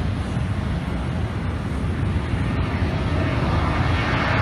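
Jet engine noise from a Southwest Airlines Boeing 737 moving along the runway: a steady, distant roar over a low rumble, growing louder near the end.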